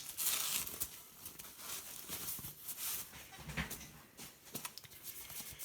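Faint rustling and light clicks of a small box and its packaging being opened and handled, louder for the first half-second.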